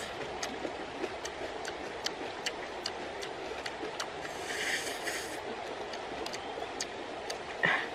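Cooked blood cockle shells clicking as fingers pry them open and handle them: many sharp light clicks, irregular, a few each second, over a steady outdoor hiss, with a brief rustle midway and a louder knock near the end.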